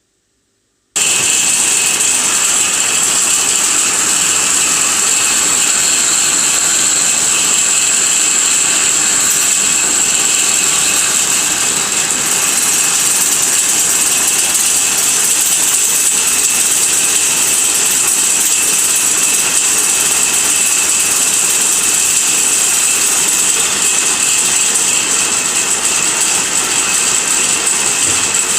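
Automatic lathe running steadily, a loud, even machine noise with a high-pitched whine over a hiss. It cuts in suddenly about a second in.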